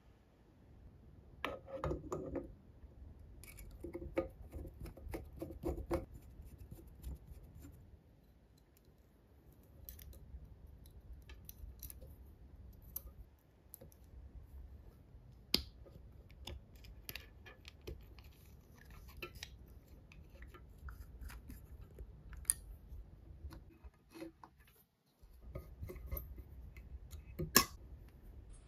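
Close-up handling of small metal model engine parts and wiring: clicks, taps and light scrapes as wire leads are fed through an aluminium mounting plate and a metal switch box is fitted to the engine. The clicks come in a dense cluster at the start, with a sharp click about halfway and a louder one near the end.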